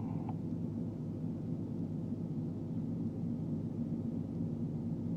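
Manitowoc 2250 crawler crane's diesel engine running steadily, heard from the operator's cab as the crane holds a suspended concrete bridge beam.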